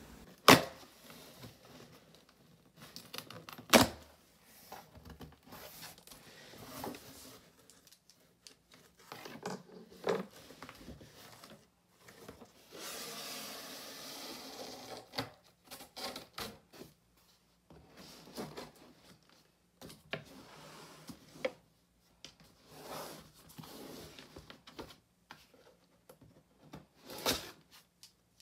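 Cardboard shipping box being handled and opened on a wooden desk: scattered knocks, clicks and rustles, with a steadier stretch of noise lasting about two seconds near the middle.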